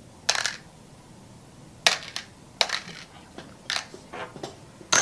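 Nuts and bolts clinking as they are handled and turned: a string of sharp, irregular clinks.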